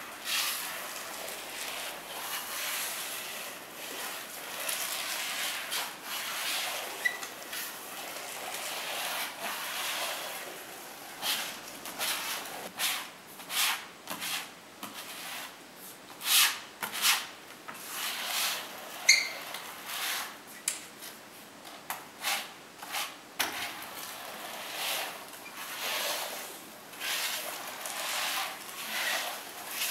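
Long-handled notched metal spreader scraping through carpet adhesive on a cement floor: a run of uneven rubbing strokes, roughly one to two a second, with a couple of short squeaks.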